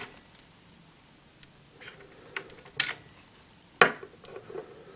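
Hard plastic toy parts clicking and knocking as a small Ryusoul piece is pulled out of a toy robot's head and another is fitted in: a few light clicks, the loudest about four seconds in.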